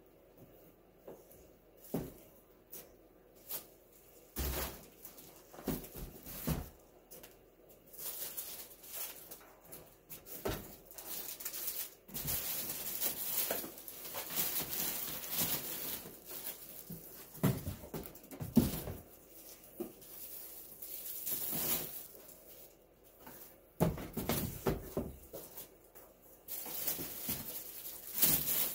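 Items in plastic packaging being handled and set down in and around a cardboard box: crinkling plastic and rustling, broken by scattered knocks and thumps.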